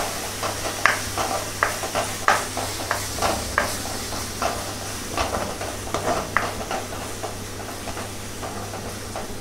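Masala paste sizzling as it fries in ghee in a kadhai, with a spatula scraping and knocking against the pan about every half second as it is stirred; the strokes thin out near the end.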